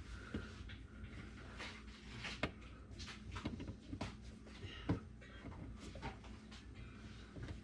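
Irregular light clicks and knocks of tools and plumbing fittings being handled under a kitchen sink, with one sharper knock about five seconds in.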